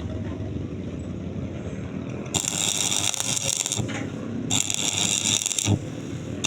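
Arc welding on a pipe: the arc sounds in bursts of about a second and a half, the first starting about two seconds in, with short breaks between. A steady low rumble sits under it.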